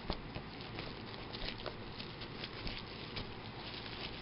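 Plastic shrink wrap being pulled off a Blu-ray case, crinkling with many small irregular crackles.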